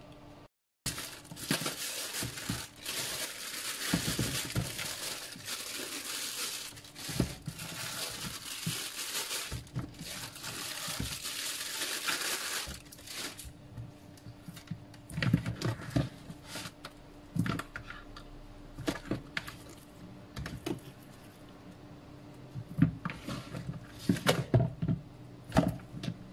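Plastic bags crinkling and rustling as raw chicken pieces are unwrapped in a plastic basin, dense for the first half; after that the crinkling stops and there are scattered soft knocks and slaps as the bare pieces are handled in the basin.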